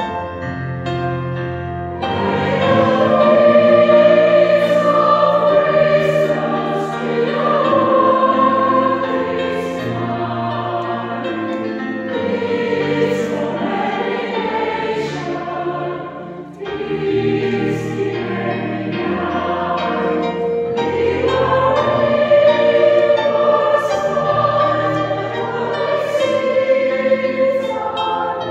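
A chamber choir joined by children's choirs singing a Christmas carol in sustained harmony. The singing swells fuller and louder about two seconds in.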